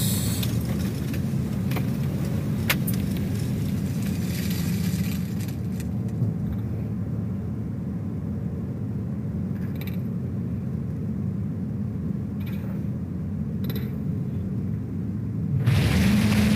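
Steady low rumble of a car driving, heard from inside as dashcam audio, with a few faint clicks; it grows louder near the end.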